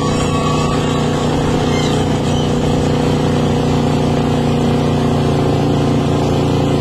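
Airboat engine and propeller running steadily at speed, loud and even.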